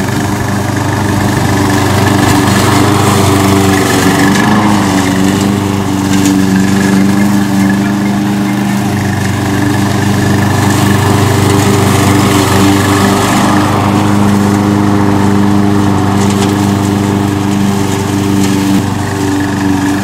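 Gas engine of a hybrid remote-controlled slope mower, which drives an alternator for its electric drive, running steadily at one speed while the mower cuts grass.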